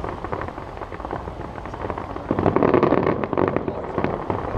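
Display fireworks going off: a dense run of rapid cracks and pops, busiest and loudest from about halfway through.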